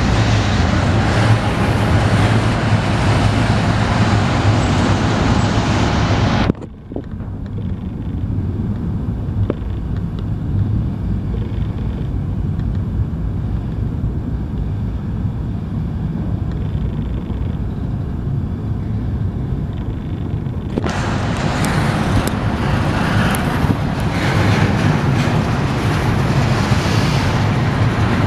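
Union Pacific double-stack container train rolling past close by: a steady, loud rumble of wheels on rail from the loaded well cars. For about fourteen seconds in the middle the sound turns suddenly muffled, then opens up again.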